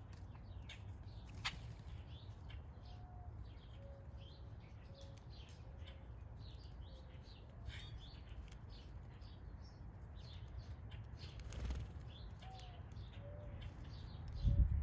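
Small songbirds chirping, and a mourning dove cooing twice, each time one higher note followed by several soft lower ones. A loud burst of wingbeats comes near the end.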